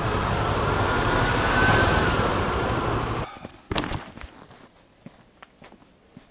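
Motorcycle riding noise, a loud rush of wind and road with a low engine rumble, which cuts off abruptly about three seconds in. Then a sharp knock, and scattered light clicks and rubbing of a gloved hand handling near the camera.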